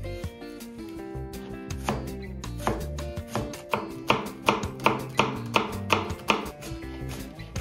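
Chef's knife dicing an onion on a cutting board: a run of sharp knife strokes cutting through the onion onto the board. They grow louder and more regular, about three a second, in the second half. Background music plays throughout.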